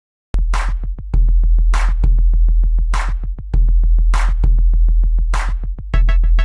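Electronic music with a drum-machine beat: a heavy bass, fast hi-hat ticks and a snare-like hit about every second and a bit, with a busier synthesizer pattern coming in near the end.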